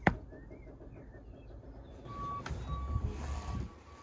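A sharp click at the very start, then a vehicle's reversing alarm beeping a steady high tone from about two seconds in, over a low engine rumble.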